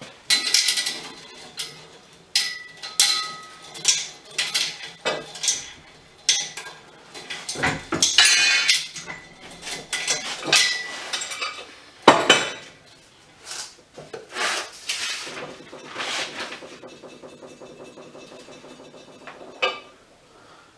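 Steel parts of a hydraulic strut spring compressor clanking and clinking together as it is being assembled: a long irregular run of sharp ringing metal knocks, then a softer steady rattle for a few seconds near the end.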